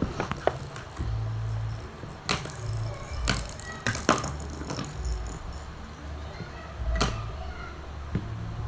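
Background music with a low bass line changing note about once a second, with several sharp clicks and rattles over it.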